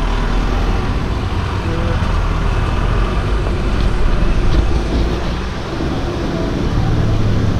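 Steady road traffic noise with a continuous low rumble.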